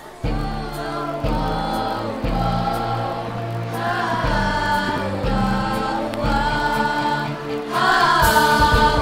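Women's choir singing together over a low bass accompaniment whose notes change about once a second. It starts suddenly just after the beginning and swells louder near the end.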